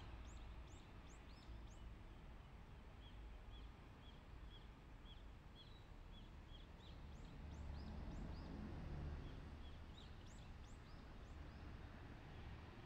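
Eastern spot-billed duck ducklings peeping faintly: runs of short, high chirps, two or three a second, with a brief pause in the middle, over a low background rumble.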